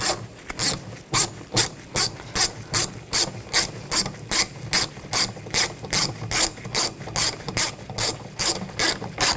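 Hand ratchet clicking in a steady rhythm, about two clicks a second, as it drives a door panel screw tight.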